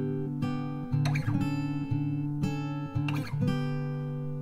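Background music: acoustic guitar strumming chords that ring on, with a new strum every second or two.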